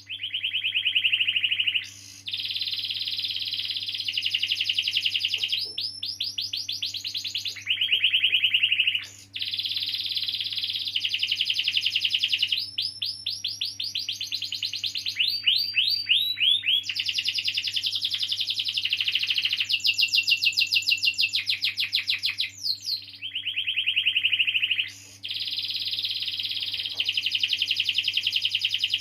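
Domestic canary singing a long unbroken song of rolling trills: fast runs of repeated notes, some sweeping up or down, with the phrase changing every second or few.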